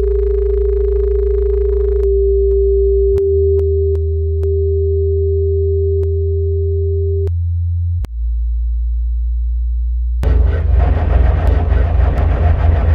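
Experimental electronic industrial music. A steady pure tone is held for about seven seconds over deep bass drones that shift pitch in steps, with a few sharp clicks. About ten seconds in, a dense, fluttering noise layer takes over.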